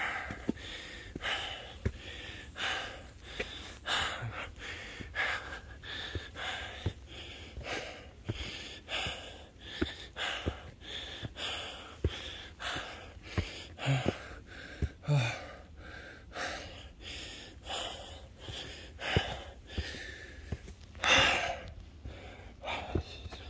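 A man breathing hard and fast, out of breath from climbing steep steps, a heavy breath about every half second or so in a steady rhythm, with one louder gasp near the end.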